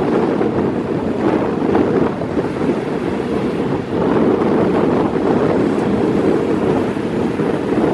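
Strong north wind blowing across the microphone in a steady, dense rush that swells and eases slightly in gusts.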